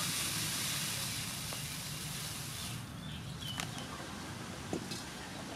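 Dry crispy-fry flour pouring from its bag into a clay pot, a steady hiss that stops about three seconds in. A few light taps follow.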